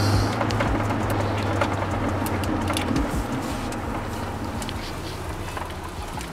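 Engine and road noise heard from inside a vehicle's cab while driving, a steady low hum that grows gradually quieter, with scattered small clicks.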